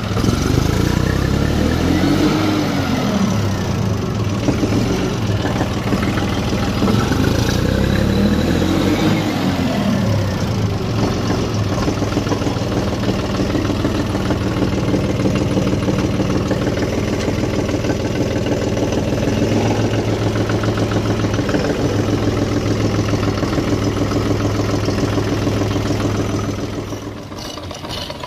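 John Deere tractor's diesel engine running, revved up and back down twice in the first ten seconds, then holding a steady speed. The sound grows quieter near the end.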